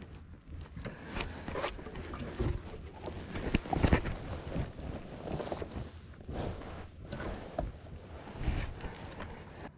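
Handling noises in a fishing boat: rustling and irregular knocks as a northern pike is lifted out of a landing net and laid on a measuring board on the deck. The loudest knocks come about four seconds in.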